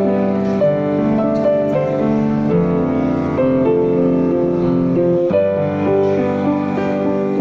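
Slow, gentle piano music: a melody of held notes over sustained chords, moving to a new chord about five seconds in.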